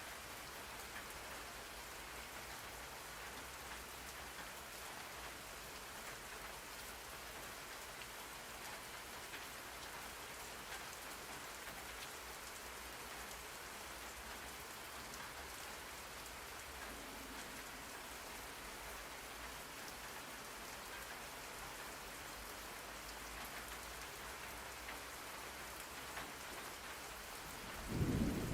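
Steady rain falling, an even hiss. Just before the end a loud, low rumble of thunder breaks in.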